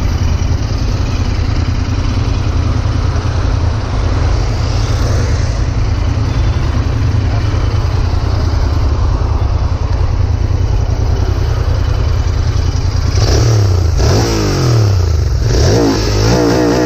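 Royal Enfield Continental GT 650's 648 cc parallel-twin engine running while being ridden, with a steady rush of wind. From about 13 seconds in, the engine note rises and falls several times.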